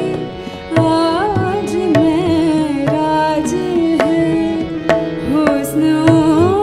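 Woman singing a ghazal in ornamented, gliding vocal phrases, accompanied by a harmonium's held chords and tabla strokes.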